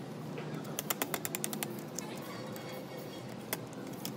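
A quick run of about nine light clicks in under a second, then two single clicks about a second and a half apart, over a steady low hiss.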